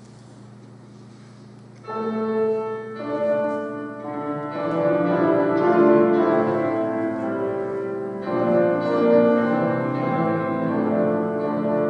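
Church keyboard instrument, piano or organ, playing an instrumental introduction before a sung psalm. It enters suddenly about two seconds in with held chords and carries on as a slow, sustained melody.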